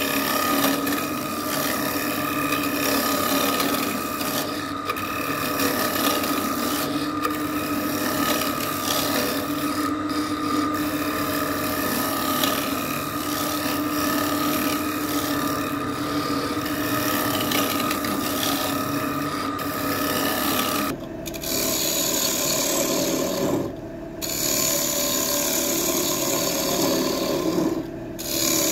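Wood lathe running while a tool scrapes the spinning wood: a steady rasping over the motor's hum, with three short breaks in the last third.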